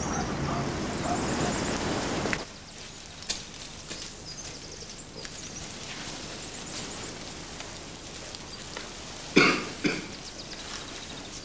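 Two short coughs about half a second apart near the end, over a faint background of high chirping. A fuller ambient bed drops away sharply a couple of seconds in.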